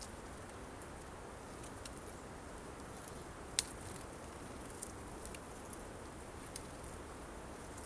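Tits at a feeder pecking at sunflower seeds: a few short, sharp, high clicks, the loudest about three and a half seconds in, over a steady faint outdoor hiss.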